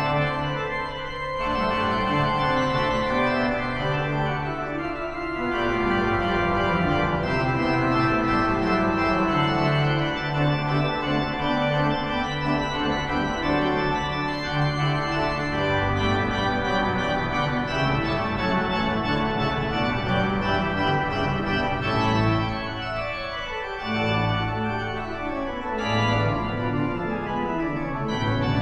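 Organ music: sustained chords held for a few seconds each, moving from one chord to the next.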